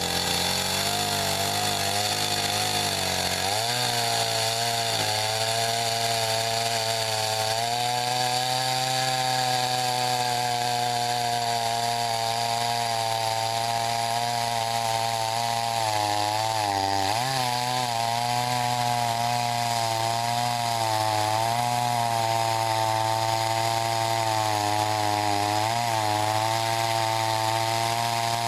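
Chainsaw running at high speed while cutting through a pecan log to slice off a round, its pitch dipping briefly several times as the chain bites under load.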